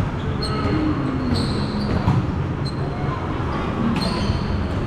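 Volleyball rally in a large gym: a few sharp ball contacts, short high sneaker squeaks on the court floor and faint players' voices, over a steady low rumble of the hall.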